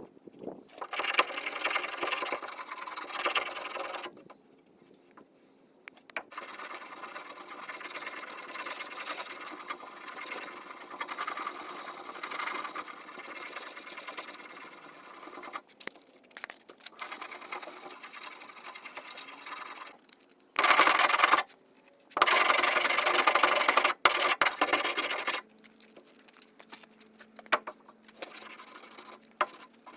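Body filler on a truck bedside being sanded down, in several bouts of a few seconds of even rasping, with short pauses between them.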